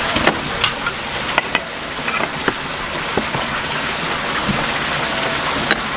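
A kitchen knife knocking on a plastic cutting board about half a dozen times, short sharp knocks as live squid is cut and gathered up, over a steady hiss.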